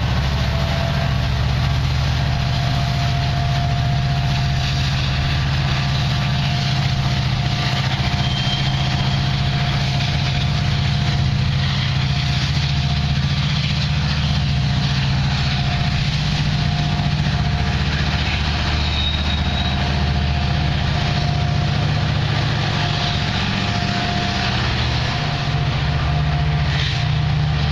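Diesel-electric freight locomotive engine running with a steady low rumble and a faint steady whine as the train moves slowly away.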